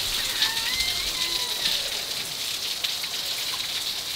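Heavy thunderstorm rain pouring steadily, an even hiss.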